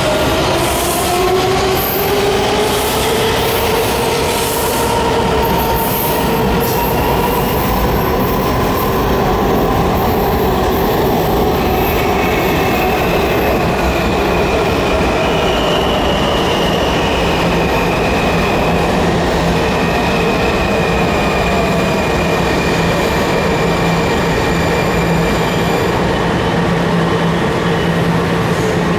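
Washington Metro subway trains: a Kawasaki 7000-series train's motors whine, rising in pitch as it pulls out of the station. Then an Alstom 6000-series train runs in and slows to a stop with a steady high whine over the rumble of the wheels.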